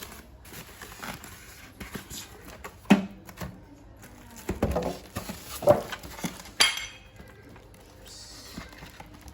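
Hard objects being handled and set down while unpacking: a few separate knocks and a short clatter, then a brighter metallic rattle about two-thirds of the way through.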